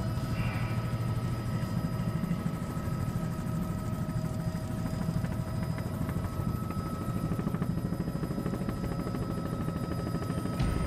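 Bell 206 JetRanger helicopter in low flight, heard inside the cabin: a steady turbine whine over the dense, rapid beat of the rotor.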